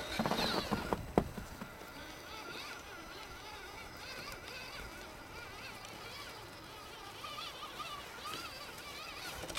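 Axial SCX10 crawler's brushed 21-turn Traxxas motor and gears whining thinly as it drives slowly through snow, the pitch wavering up and down with the throttle. There is a sharp knock about a second in.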